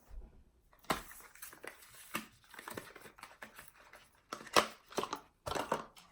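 Makeup products and their packaging being handled: irregular clicks and taps with light rustling, the loudest clicks coming near the end.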